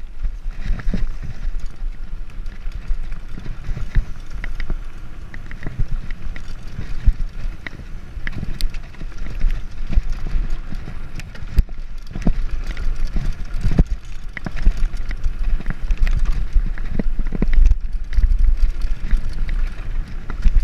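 Mountain bike riding fast down a dirt singletrack: tyres rolling over dirt with a continuous low rumble, broken by frequent irregular knocks and rattles as the bike hits bumps.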